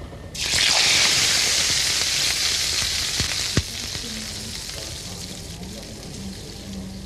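A raw meat chop laid into a hot frying pan starts sizzling suddenly about half a second in, loud at first, then slowly dying down. Two sharp clicks come a little after three seconds in.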